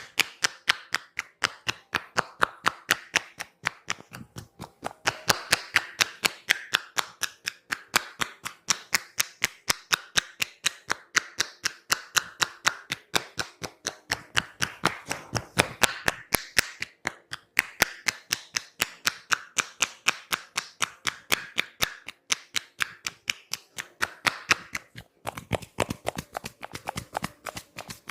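Rapid, even percussive massage strikes on the body, about five sharp taps a second, turning heavier and lower near the end.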